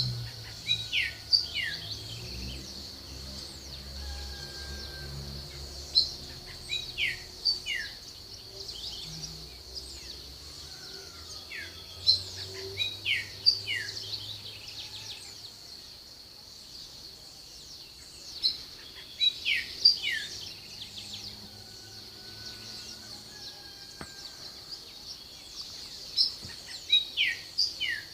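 A songbird singing the same short phrase of quick downward-sweeping notes over and over, about every six seconds, over a steady high-pitched tone and a low rumble that fades out about ten seconds in.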